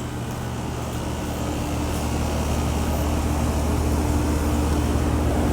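Heat pump outdoor unit running in heat mode: a steady hum of compressor and condenser fan that grows gradually louder. Its coil is iced over and the airflow through it is restricted.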